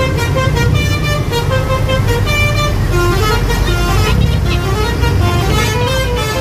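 A bus's 'telolet basuri' musical air horn playing a melody of quick, stepped notes, over the low rumble of the bus engine.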